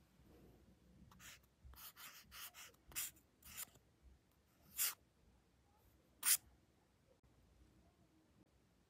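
Felt-tip marker scratching across colouring-book paper in short strokes: a quick run of about seven light strokes, then two louder ones, the loudest a brief sharp scratch about six seconds in.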